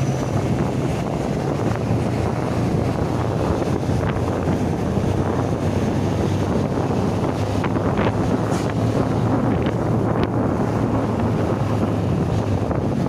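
Wind buffeting the microphone over a steady low vehicle engine drone.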